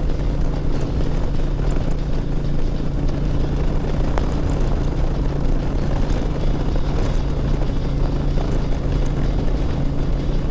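Motorcycle engine running steadily at cruising speed, with wind rush and tyre hiss on a soaking-wet road.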